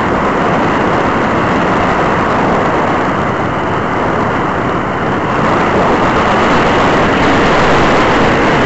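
Steady loud rushing noise on a powered glider's onboard camera in flight: airflow over the airframe and microphone mixed with the drive noise, growing a little louder about halfway through.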